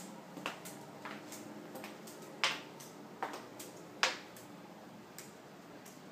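Footsteps on a hard floor in an empty room, each step a sharp click, about one every half to three-quarters of a second, with two louder steps about two and a half and four seconds in.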